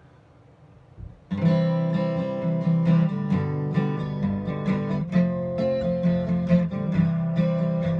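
Acoustic guitar intro of a country song, strummed and picked, coming in about a second in after a moment of faint hiss.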